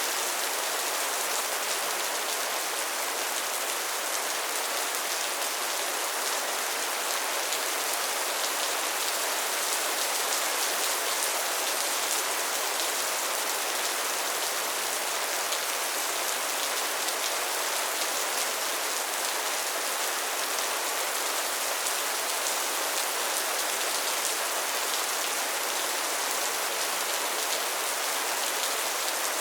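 Steady rain falling: an even hiss of countless drops, unchanging throughout, with no thunder.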